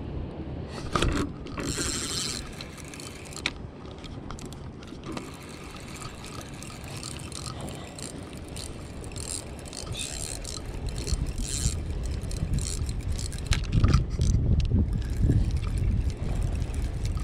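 Spinning fishing reel being cranked to retrieve line, with irregular clicks and scrapes from the reel and the handling of the rod. Wind buffets the microphone with a low rumble that gets stronger near the end.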